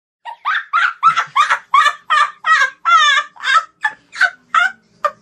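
A man's hearty laughter, a loud run of short 'ha' bursts about three a second that get shorter and thin out near the end.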